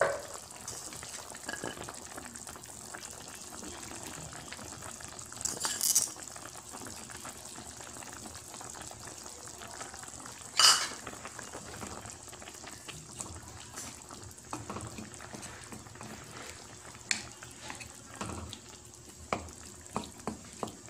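Chicken simmering in broth in a metal pan, a steady bubbling hiss. Sharp clatters about 6 and 11 seconds in as carrot pieces go into the pan, and a run of small knocks near the end as a wooden spatula stirs it.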